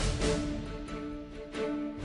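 Instrumental break in a Marathi patriotic song: held sustained tones with recurring percussion strikes, no singing.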